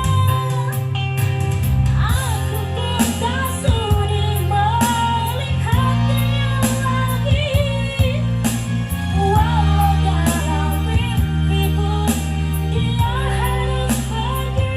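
A woman singing a melodic song with wavering, held notes over a backing track with bass and a regular beat.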